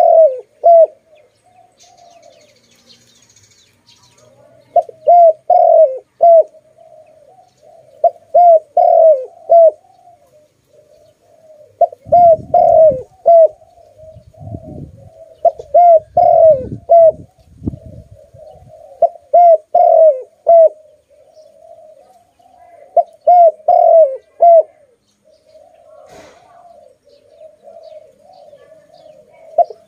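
Spotted dove cooing its song: phrases of a few low, repeated coos, one every three to four seconds after a short pause at the start. Some low rumbling is mixed in midway.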